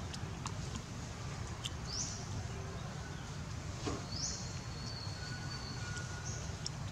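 Outdoor ambience with a steady low rumble, and a high, thin call three times, about two, four and six seconds in; the middle call is held for over a second.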